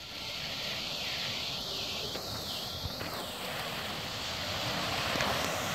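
Small waves washing onto a pebble beach: a steady hiss of surf that swells a little about five seconds in.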